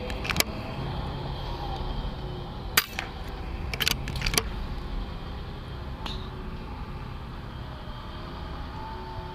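An air rifle fires with one sharp crack about three seconds in, followed about a second later by two quick clicks, over a steady low engine-like hum.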